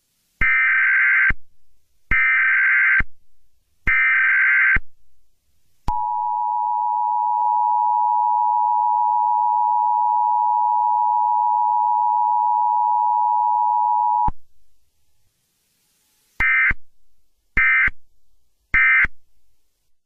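Emergency Alert System signal for an Emergency Action Termination. Three digital data bursts of the SAME header, each under a second, are followed by the steady two-tone attention signal for about eight seconds, then three very short data bursts of the end-of-message code near the end.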